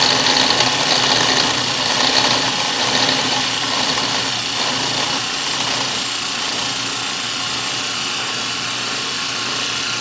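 Tire-truing machine running: a powered rotating cutter shaving rubber off a spinning tire, a steady high hiss over a motor hum, a little louder for the first few seconds. The tire is being shaved round so that it runs true on its wire wheel.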